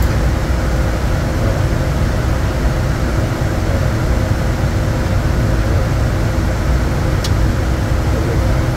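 Steady cabin noise inside the cockpit of a Bombardier Challenger 350 business jet on approach: a constant rush of air and engine noise with a faint steady hum. A short click sounds about seven seconds in.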